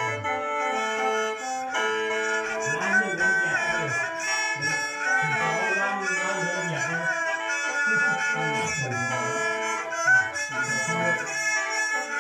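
Lao khaen, a bamboo free-reed mouth organ, playing held chords and drones, with a two-string bowed so fiddle sliding through a melody beneath it.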